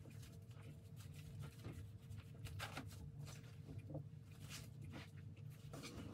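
Faint scattered rustles and light taps of gloved hands handling sushi rolls on a bamboo rolling mat, over a low steady hum.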